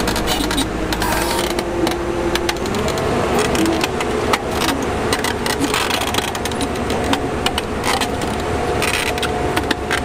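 Heavy diesel machinery engines running, their pitch stepping up twice as they rev, over steady noise with irregular clicks and knocks.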